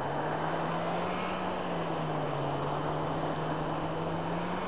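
Distant rally car's engine running hard on an ice track, a steady drone whose pitch steps up and down a few times as it changes revs.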